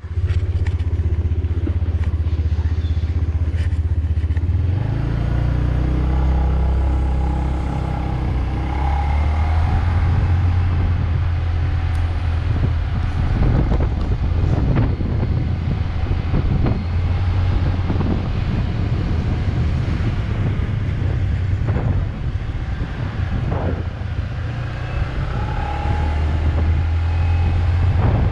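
Motorbike engine running under way, heard from the back seat, with wind buffeting the microphone. The engine note rises about five seconds in.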